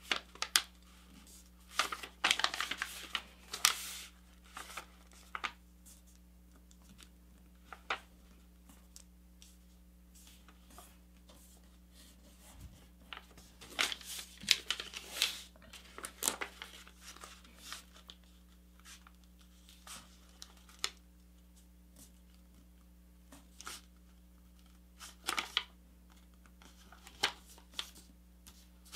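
A sheet of paper being handled and folded by hand: scattered short rustles, crinkles and swipes as fingers run along creases, coming in clusters with quiet gaps between. A faint steady low hum lies underneath.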